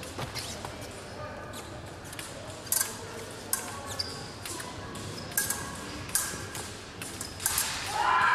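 Épée blades clicking and clashing, with sharp taps of footwork on the piste; several clashes leave a short metallic ring. Near the end a loud voice rises and holds.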